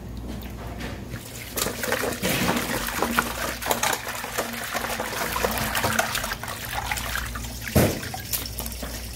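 Water from a hose pouring into a stainless steel bowl and splashing as gloved hands swish raw anchovy fillets in it, rinsing them. The splashing grows louder about a second and a half in.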